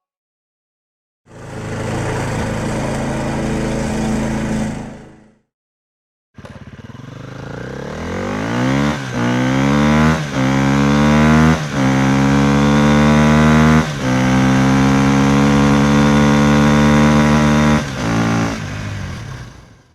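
A vehicle engine running steadily for a few seconds. After a short gap it revs up through the gears, its pitch climbing and dropping back four times at each shift, then holds steady before dying away near the end.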